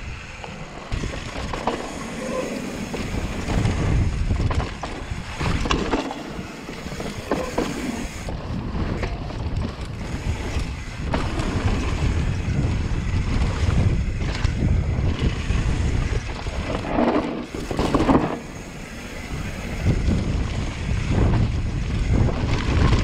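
Wind buffeting a chest-mounted GoPro's microphone as a mountain bike descends fast over gravel and dirt trail, with tyre noise and a steady low rumble. Short rattles and knocks from the bike come through over bumps several times.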